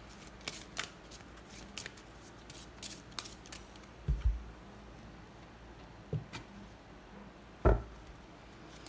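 Light scattered clicks and ticks, like cards being handled, with a few soft thumps; the loudest thump comes near the end.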